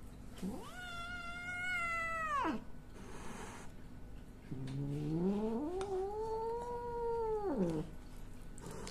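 Young tabby cat yowling angrily, two long drawn-out calls: the first held high, then dropping away; the second, longer, starting low, rising and then falling.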